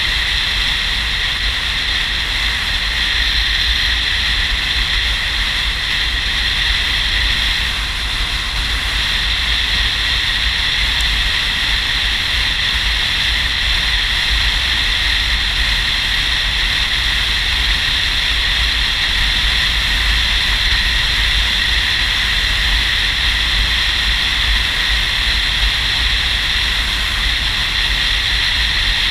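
Steady wind rush on the microphone and road noise from a touring motorcycle at cruising speed, with a low rumble underneath and no clear change in engine pitch.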